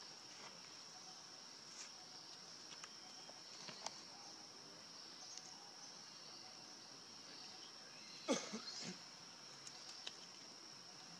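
Steady high-pitched drone of insects, with a few faint clicks and a short louder sound about eight seconds in.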